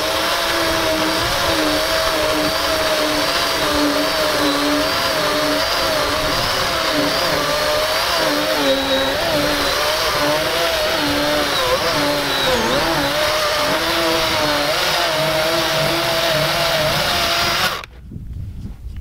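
DeWalt FLEXVOLT brushless cordless chainsaw cutting through an old wooden fence post. Its electric motor whine wavers in pitch as the chain bites into the wood, then cuts off suddenly near the end.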